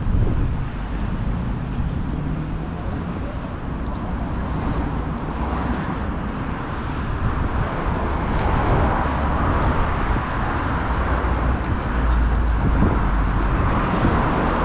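Road traffic noise on a city street: a steady mix of car engines and tyres that grows louder about halfway through.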